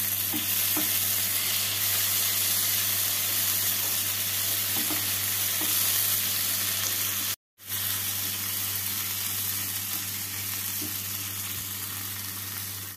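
Onions, tomatoes, ginger and green chillies frying in hot ghee and oil in a non-stick kadai, stirred with a silicone spatula: a steady sizzle that cuts out for a moment about halfway through, then carries on a little quieter.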